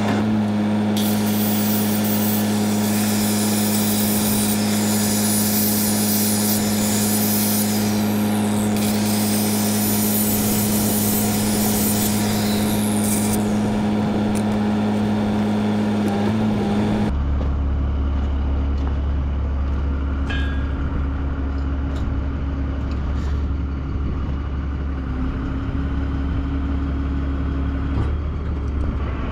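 For about the first seventeen seconds an electric grinder works steel over a steady engine hum; then the sound changes abruptly to the deep, steady drone of a running crane engine.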